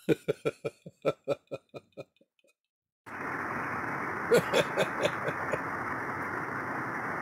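A man chuckling: a run of short laughs, about five a second, fading out over two seconds. About three seconds in, a steady rushing noise starts, with a few more short chuckles over it.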